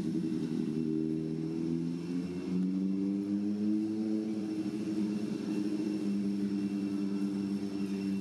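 A motor engine running steadily at low revs, its pitch drifting slightly, with a faint high steady whine above it.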